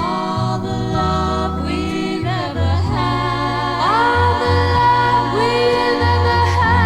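Background music: a slow song with wordless sustained vocal harmonies, sliding into each held note, over a steady bass line.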